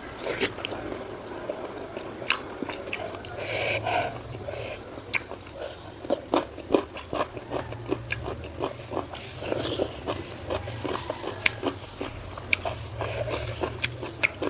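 Close-miked chewing and eating: wet mouth clicks and smacks several times a second as a mouthful of food is chewed.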